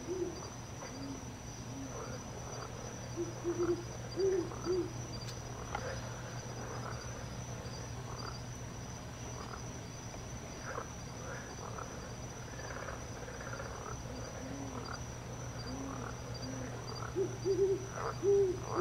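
Owl hooting: short low hoots in a run a few seconds in and another near the end, over a steady high-pitched insect trill.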